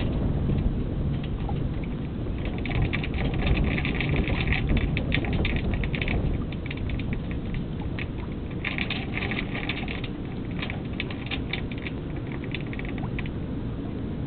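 Wind rumbling on the microphone aboard a small sailboat under way, with two stretches of rapid crackling, one starting about two seconds in and one about nine seconds in.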